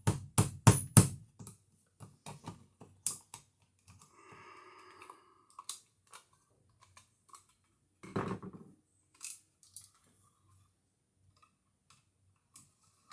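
Sharp tapping strikes, about four in the first second and one more about three seconds in, then scattered light clicks and a dull knock about eight seconds in: hand tools working on an electrical outlet box.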